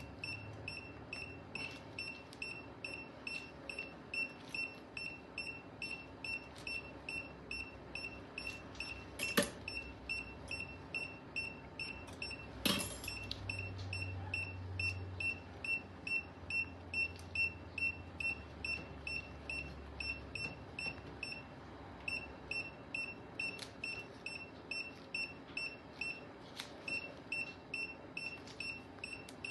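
Surgical patient monitor beeping steadily at about two high beeps a second, pausing briefly about two-thirds of the way through. Two sharp clicks are heard, about a third and nearly halfway in.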